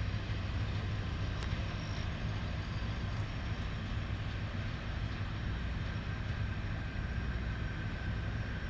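Low, steady rumble of a departing diesel-hauled passenger train rolling away on the rails, with a faint thin high whine running through it and an occasional light click.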